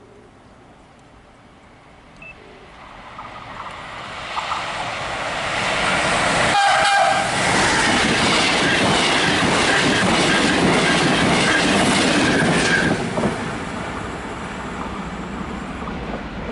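A fast regional train passing through the station without stopping: its wheel and rail noise builds over the first few seconds, stays loud for about seven seconds, then eases as it goes by. A brief horn note sounds about seven seconds in.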